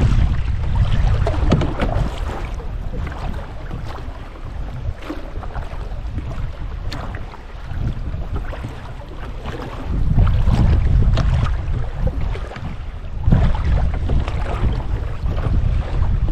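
Wind gusting against the microphone with a low rumble that swells and fades, over water splashing around a canoe on a lake.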